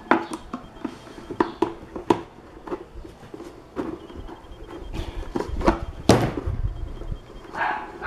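Irregular clicks and knocks of a screwdriver and hand tools working on a blender base, trying to turn a stuck drive coupling nut, with a heavier knock about six seconds in.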